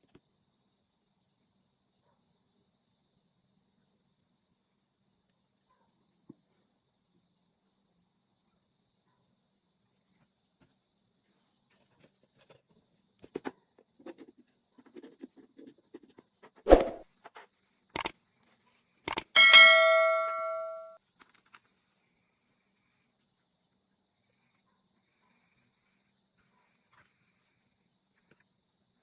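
A steady high-pitched insect trill, like crickets, throughout. Partway through come a few light knocks and one sharp knock, then a bell-like ding that rings for about a second and a half before dying away.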